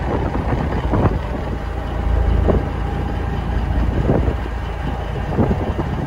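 Gusty wind from an approaching thunderstorm buffeting the microphone: a loud low rumbling rush that swells and eases, with a few brief knocks.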